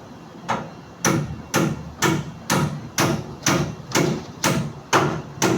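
A hammer striking steadily, about two blows a second, each blow a sharp knock with a short ring; eleven blows in all, starting about half a second in.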